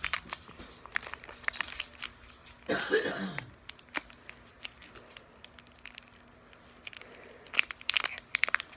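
Crinkly plastic candy wrapper being twisted and picked open by hand: irregular crackles throughout, thickening into a dense burst of crinkling near the end. A short vocal sound, falling in pitch, about three seconds in.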